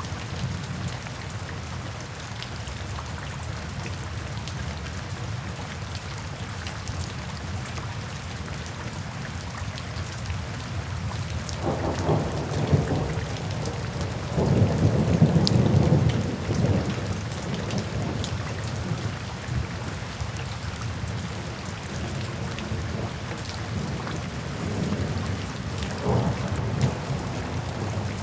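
Steady rain falling on a tin roof, with thunder rumbling about halfway in, loudest for a couple of seconds, and a shorter rumble near the end.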